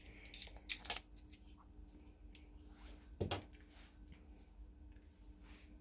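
A few sharp clicks and crisp crackles from kitchen utensils handling food, loudest about a second in and again a little after three seconds, over a faint steady hum.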